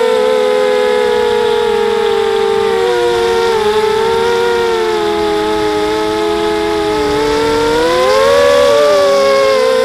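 Brushless motors and propellers of an FPV multirotor whining in flight, several close tones shifting in pitch with the throttle. The pitch sags slowly until about seven seconds in, then climbs sharply and gets louder around eight seconds. Heard up close through the camera riding on the craft.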